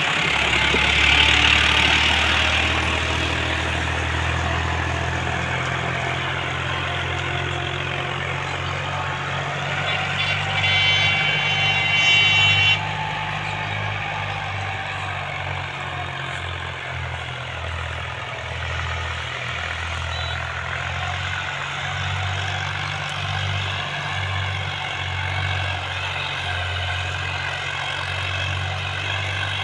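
Farmtrac tractor's diesel engine running steadily under load as it pulls a tillage implement through the field, a little fainter after the first few seconds as it moves away. Midway a high-pitched tone sounds for about two seconds and cuts off suddenly.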